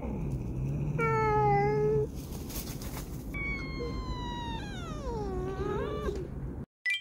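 Stray cats squabbling at a feeding spot: a short yowl about a second in, a hiss, then one long drawn-out meow that slides down in pitch. The calls are a hostile exchange between the cats.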